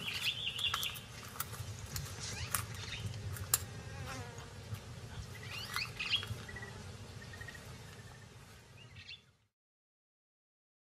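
Outdoor wildlife ambience: insects buzzing, with a few short bird chirps and scattered soft clicks. It fades out about nine seconds in.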